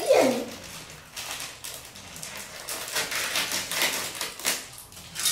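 Thin plastic wrapping crinkling and rustling in irregular crackles as a packet is handled and opened by hand.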